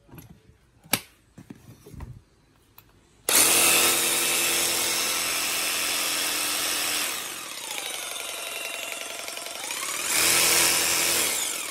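Ryobi 18V cordless jigsaw switched on after a few handling clicks and run without cutting, its motor and reciprocating blade making a loud, steady whir. It slows to a lower, wavering speed for a few seconds, then speeds up again and cuts off near the end.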